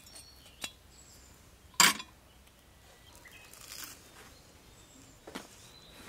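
A sharp metal clack about two seconds in, with a couple of lighter clicks before and after: a hot sandwich maker's metal plates being unlatched and opened on a camp stove. Faint birdsong behind.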